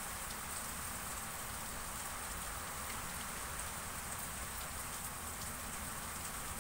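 Steady, even hiss of background noise with no distinct sound events in it.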